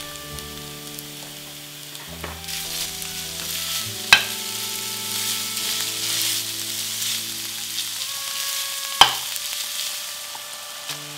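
Ground beef and minced red onion sizzling in a frying pan as a spatula breaks up and stirs the meat; the sizzle swells a couple of seconds in. Two sharp knocks against the pan, about four seconds in and again about nine seconds in.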